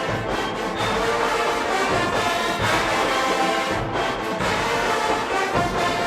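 HBCU marching band playing in the stands during a stand battle: a loud, full brass section, trombones and trumpets over tubas, with a low drum pulse underneath.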